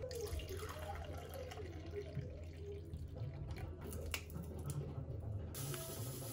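Water poured from a jug into a plastic measuring cup, running and splashing as the cup fills.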